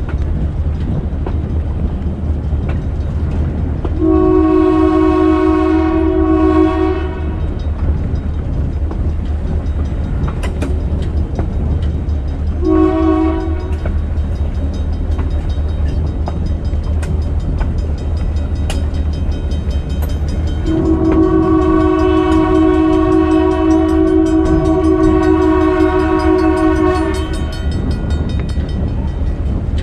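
GMD-1 diesel locomotive's horn sounding three blasts: a long one, a short one, then a longer one of about six seconds, over the steady low rumble of the moving train.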